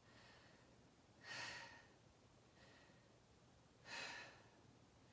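A woman's faint, heavy breaths, two of them about two and a half seconds apart, from the effort of holding a plank.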